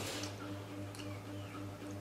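Close-up eating sounds: short mouth smacks and chewing with light clicks as chopsticks stir and lift noodles from a bowl, the loudest at the very start. A steady low electrical hum runs underneath.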